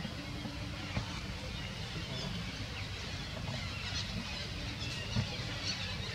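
Macaques giving a few brief, faint high squeaks over a steady low rumble.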